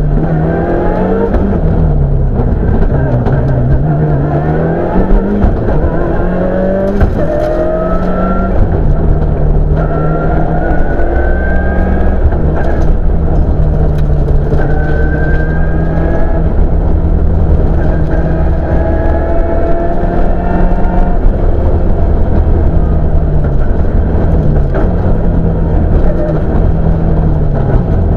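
Toyota Celica rally car's engine heard from inside the cabin, revving hard up through the gears. The pitch climbs again and again and drops back at each shift, with a few falls and recoveries as it slows for corners.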